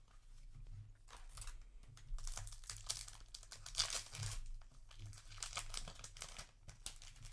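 Crinkling and rustling of a foil trading-card booster pack wrapper, with cards being handled, in a string of short irregular rustles over a low steady hum.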